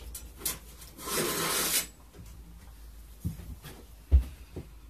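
Rummaging for a hand tool at a workbench. A scraping rustle about a second in, then several light knocks and one sharper thud near the end.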